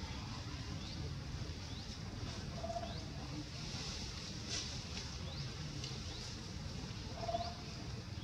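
Outdoor forest ambience: small birds give short rising chirps about once a second over a steady low rumble. A brief low call sounds about three seconds in and again near the end.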